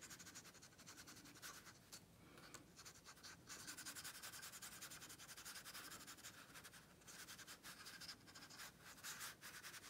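Water brush pen's bristles brushing wet ink across textured watercolour paper: faint, irregular strokes.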